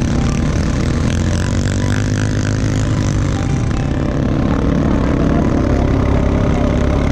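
Quad bike (ATV) engine running at a steady speed while riding over sand, with rushing noise over it that fits wind on the microphone.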